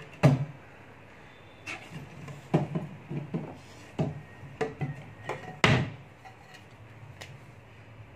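Handling noises from rummaging among grocery packets and plastic containers: a string of irregular knocks, clicks and crinkles, with two louder thumps, one right at the start and one a little past halfway.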